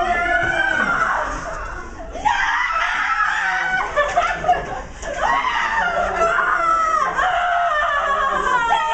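A group of young people shrieking and yelling together, several high voices in long cries that slide downward in pitch, mixed with laughter.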